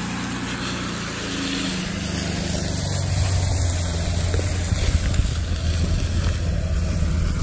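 Toyota Land Cruiser engine running as the truck rolls slowly past over leaf-covered ground, a steady low rumble that grows louder about two seconds in.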